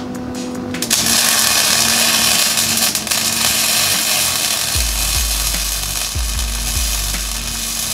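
Handheld angle grinder cutting steel tubing, starting about a second in with a loud, steady hiss.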